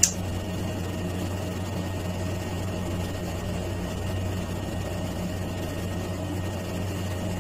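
Steady low mechanical hum: an unchanging drone with a few faint steady tones above it, and one short click right at the start.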